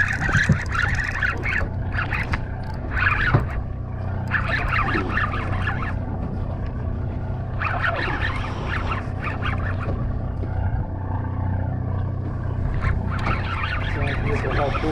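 A party fishing boat's engine running steadily, a constant low drone, with a few separate higher-pitched calls sounding over it at intervals.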